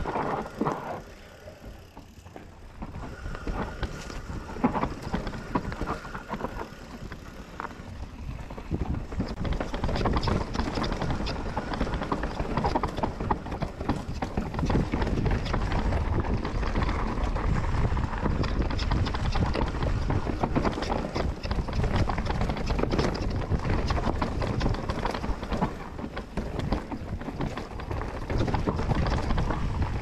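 Commencal Meta mountain bike riding down a trail: tyres rolling over the dirt, with a constant clatter of chain and frame rattles. Quieter for the first several seconds, then louder and busier from about nine seconds in.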